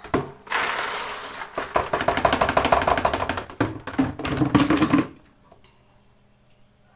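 Beans being tipped out of a plastic container into a plastic basin, a dense rapid rattle of many small hits on the plastic, stopping about five seconds in.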